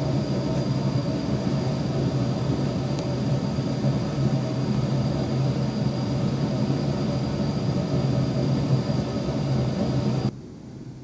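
Steady mechanical drone, a low hum with a thin high whine over it, that cuts off abruptly near the end.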